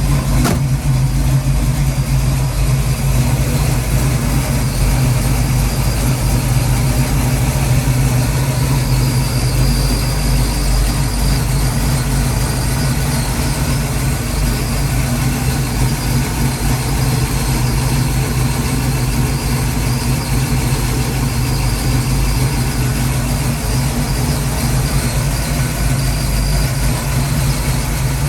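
Freshly rebuilt Ford 331 stroker small-block V8 idling steadily, its idle not yet tuned: the mixture screws still need adjusting. A single click about half a second in.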